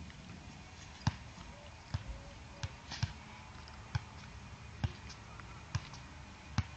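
A small dog digging at grassy ground: a string of short, sharp thuds, about one a second.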